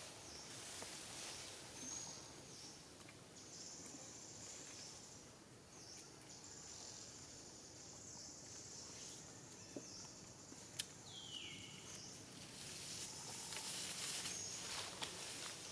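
Forest ambience of insects buzzing in a high, steady drone that comes and goes in long stretches. About eleven seconds in there is a sharp click, then a short falling call.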